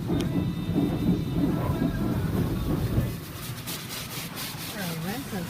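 Car wash spray drumming hard on the car's body and roof, heard from inside the car, a dense rumble that drops off suddenly about three seconds in. Near the end a wavering tone starts that rises and falls in pitch.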